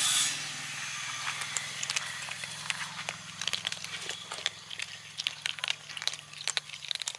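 Kittens crunching dry cat kibble: many quick, irregular crisp clicks of chewing over a low steady hum.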